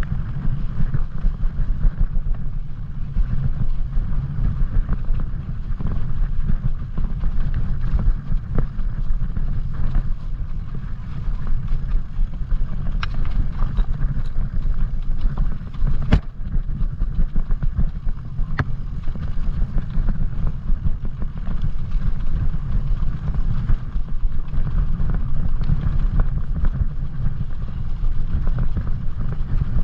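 Wind buffeting the microphone of a mountain biker's camera during a descent over snowy, rocky ground, with the rolling noise of the bike underneath. A few sharp knocks sound in the middle, as the bike strikes rocks.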